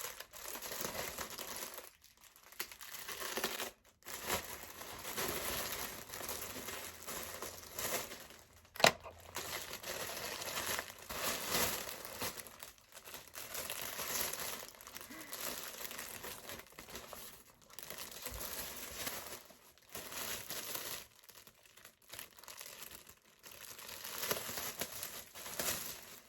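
Packaging crinkling and rustling as a mail-order package is opened and the clothing inside is unwrapped by hand, with some tearing and short pauses. A single sharp click a little under halfway through is the loudest sound.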